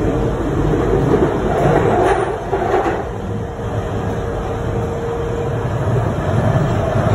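Central line tube train (1992 stock) running along the track, heard from inside the carriage: a loud, continuous rumble of wheels and motors, with a steady whine through most of it that stops about six seconds in.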